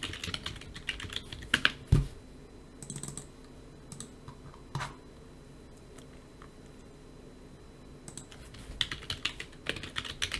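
Computer keyboard typing in short bursts of keystrokes, with one louder key thump about two seconds in. Typing pauses for a few seconds midway, then resumes with a quick run of keys near the end.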